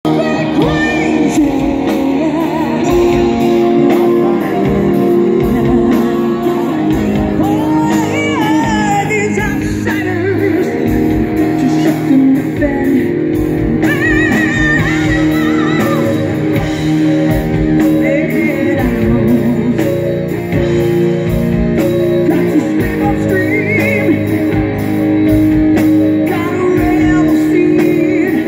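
Live rock band playing: a woman singing lead over distorted electric guitars, bass guitar and a drum kit.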